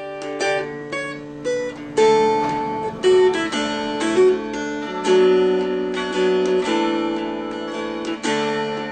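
Background music: an acoustic guitar playing a run of plucked notes and strummed chords.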